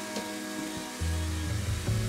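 Background music with sustained bass notes that change about a second in and again near the end, under held higher tones.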